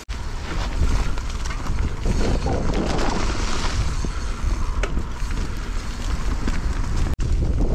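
Wind buffeting the camera microphone while a mountain bike descends a trail at speed, with tyre roar on dirt and scattered knocks and rattles from the bike. The sound drops out for an instant near the end.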